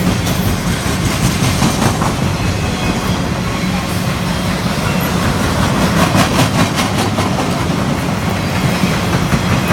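Freight cars of an empty rail train rolling past, with a steady rumble and wheels clicking over rail joints, the clicks thickest in the second half.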